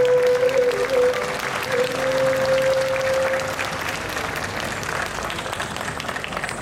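Audience applauding, over the music's last long held note, which stops about halfway through.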